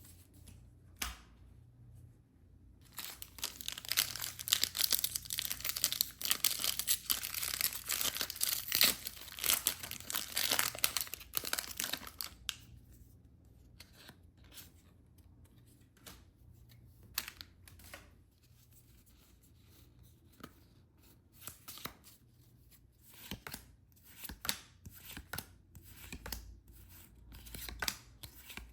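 Plastic packaging being torn open and crinkled by hand: a dense run of tearing and crinkling from about three seconds in to about twelve, then scattered light rustles and clicks.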